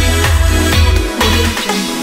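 Background electronic dance music with a steady beat and heavy bass; the bass drops out near the end.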